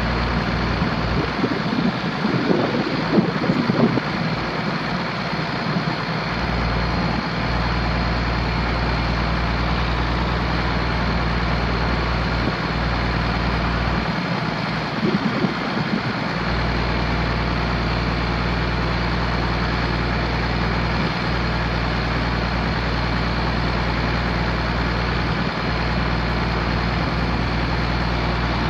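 John Deere 4430's six-cylinder diesel engine running at a steady speed, with two short, louder rough noises about two seconds in and again about fifteen seconds in.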